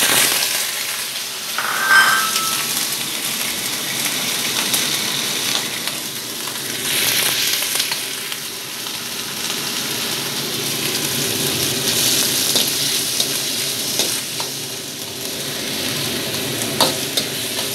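Sliced pork sizzling as it fries in a hot wok, a steady hiss, with the metal spatula clicking and scraping against the pan now and then as the meat is stirred; one knock about two seconds in rings briefly.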